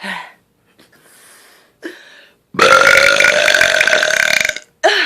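A young woman's single long, loud burp held at a steady pitch for about two seconds, starting about two and a half seconds in.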